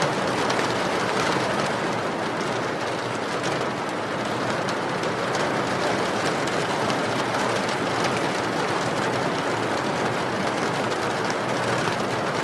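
Steady rain falling, an even hiss with fine ticks of individual drops throughout.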